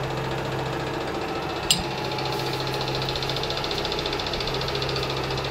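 Metal lathe running steadily with a low machine hum. One sharp metallic click comes a little under two seconds in, and a faint, fast ticking follows.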